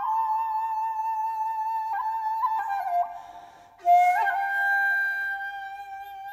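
Solo flute playing a slow melody of long held notes with small ornamental slides between them. It breaks off for a breath about three seconds in, then starts a new phrase with a breathy attack.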